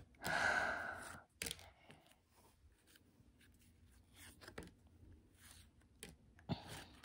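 A soft breathy rush lasting about a second near the start, then faint clicks and paper rustles of cardboard football trading cards being slid one by one from the front of a stack to the back.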